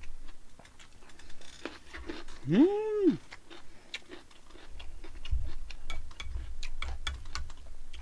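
Close-miked chewing with many small wet mouth clicks. Between two and three seconds in there is a short hummed "mmm" that rises and falls in pitch. In the second half come soft low thuds.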